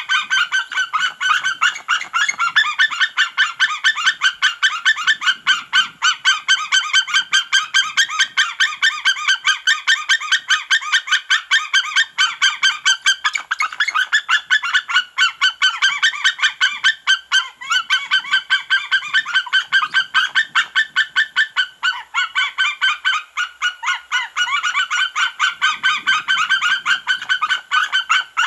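A pair of white-tailed eagles calling loudly together in a long, unbroken series of quick yelping notes, about four or five a second.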